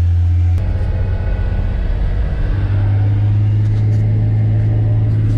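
Truck engine running steadily, heard from inside the cab while driving through floodwater: a loud, steady low drone that changes abruptly about half a second in.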